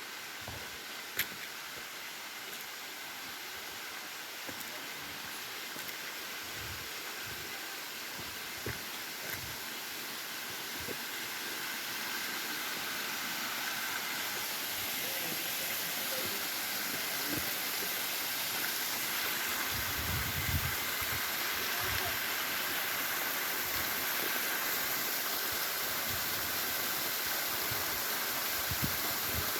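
Small waterfall rushing, a steady hiss of falling water that grows gradually louder, with a few low thumps about twenty seconds in.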